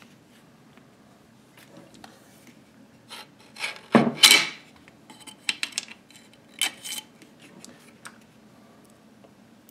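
Small steel parts clicking, clanking and scraping inside a Type 81 rifle receiver as a scribe works the hammer loose and the hammer and its coiled wire spring are lifted out. A harsh scrape about four seconds in is the loudest, with a scatter of lighter clicks over the next few seconds.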